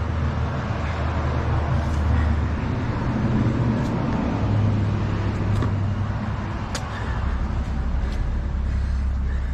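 A motor engine running steadily, a low hum whose pitch steps up about halfway through and drops back near the end, with a few sharp taps of hands and shoes landing on asphalt during burpees.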